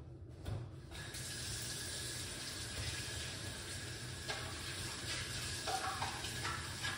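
Kitchen tap running steadily, starting about a second in, with a few light clinks and knocks over the water.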